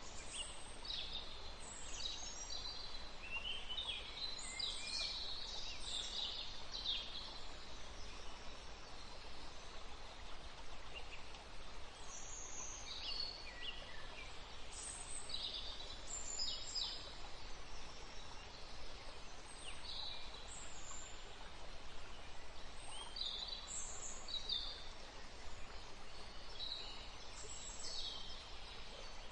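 Forest ambience: a steady hiss of green noise with small birds calling and chirping again and again, in clusters of short, high notes.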